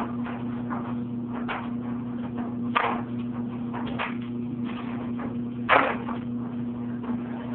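Several short knocks or taps, a few seconds apart, the loudest near the end, over a steady low hum.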